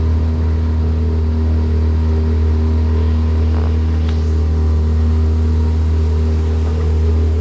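Motorboat engine running steadily at constant speed, a loud, unchanging low drone.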